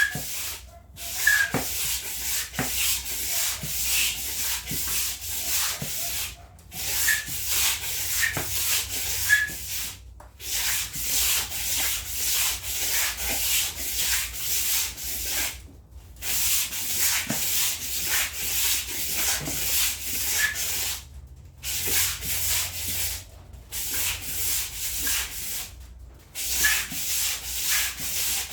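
Rapid, rhythmic scrubbing strokes rubbing against a hard surface, in runs of a few seconds broken by short pauses.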